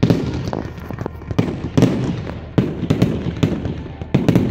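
Aerial fireworks bursting in quick, irregular succession, about ten sharp bangs in four and a half seconds. Each bang trails off in a low rumble.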